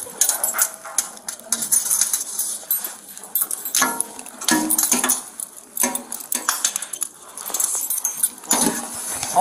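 Metal handcuffs clinking and clicking as they are unlocked and taken off a prisoner's wrists, with clothing brushing against the body camera. A short whining sound comes about four seconds in.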